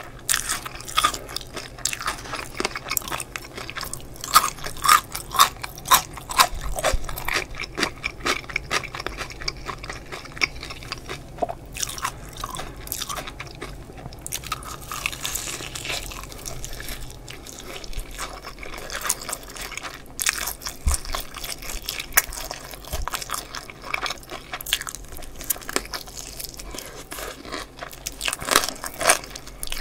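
Close-miked bites and chewing of crispy BBQ Golden Olive fried chicken drumsticks: the fried crust crunches and crackles in quick, irregular clicks, with louder clusters of crunches as fresh bites are taken, between softer chewing.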